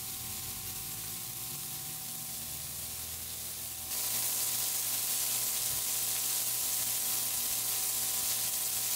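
Raw beef burger patties sizzling on a hot Blackstone propane griddle's flat steel top: a steady hiss that steps up louder about four seconds in.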